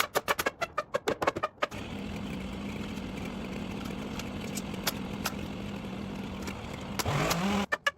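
Two-stroke chainsaw engine running steadily at low speed, then revving up with a quick rising pitch about seven seconds in before cutting off. Rhythmic clicking music plays for the first second and a half.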